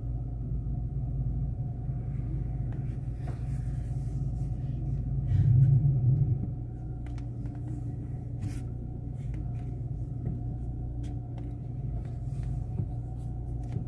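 Chevrolet Meriva idling, heard from inside the closed cabin as the steering wheel is turned from side to side; the low hum swells for about a second around five seconds in, with only a few faint light ticks otherwise. The suspension knock it had when steering is gone: practically zero.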